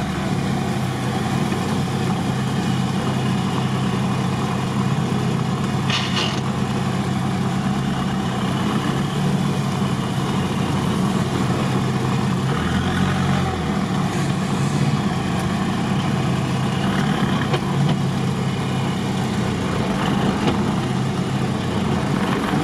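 Off-road vehicle's engine running steadily at low revs while crawling through tall grass, heard from inside the vehicle. A brief sharp click about six seconds in.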